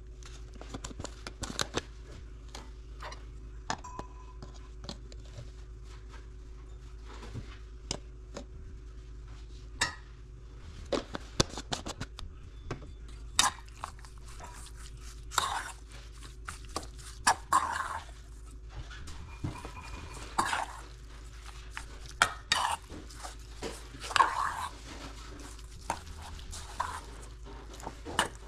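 Metal spoon clinking and scraping against a stainless steel mixing bowl while stirring raw chicken pieces. There are scattered light clicks at first, and the scraping strokes come more often and last longer in the second half.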